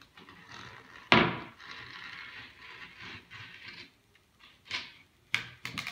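Utility blade cutting the excess griptape along the edge of a skateboard deck, a scratchy rasping for a few seconds. A sharp knock of wood on wood about a second in, the loudest sound, and a few light clicks near the end.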